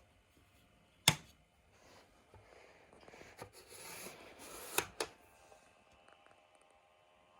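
Mechanical clicks and clunks of a top-loading VCR being handled: a sharp clunk about a second in, then a scuffing rustle and two more clunks near five seconds, as the controls and cassette tray are worked.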